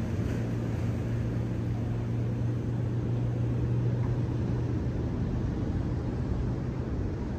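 A low, steady engine hum that dies away near the end, over a low rumble.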